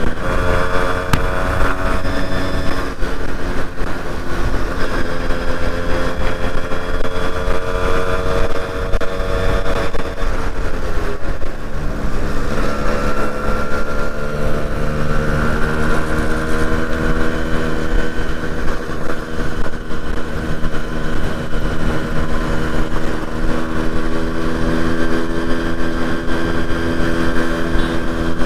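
Yamaha RX two-stroke motorcycle engine running under way. Its pitch climbs steadily for about ten seconds, falls sharply around eleven seconds in as the revs drop, then holds and rises slowly again, over a steady low rumble.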